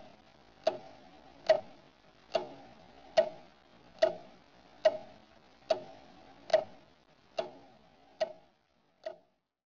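Clock ticking slowly and evenly, a little more than one tick a second, each tick with a short ring; the ticks grow weaker near the end and stop after about nine seconds.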